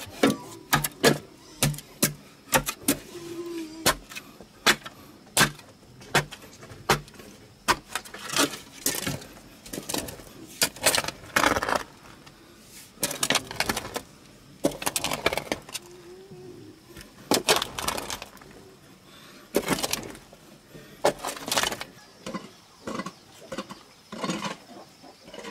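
Digging in packed clay soil by hand: a hoe chopping into the earth in quick strikes, about two a second, then a shovel scraping and scooping loose soil in longer strokes.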